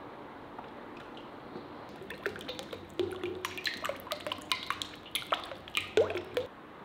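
Vegetable oil pouring from a large plastic bottle into a metal cauldron, heard as irregular glugs and splashes from about two seconds in that stop shortly before the end.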